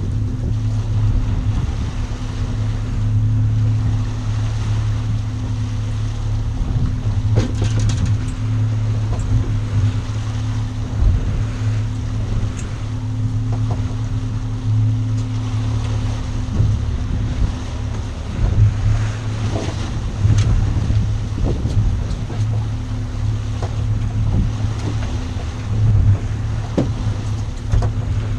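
A motorboat's engine running with a steady low hum, over the rush of water and wind, with a few sharp knocks here and there.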